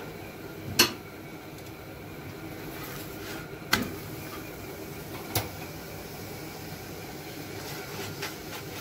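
Steady kitchen hum with three sharp metallic clicks, the first about a second in, the others near the middle: steel tongs striking the iron tawa as a paratha is brushed with oil and turned over.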